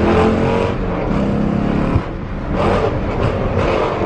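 Dodge Challenger R/T's HEMI V8 accelerating through a Borla ATAK cat-back exhaust in sport mode, heard from inside the cabin. The note starts as a steady pitched drone and turns into rough surges, with a sharp knock about two seconds in.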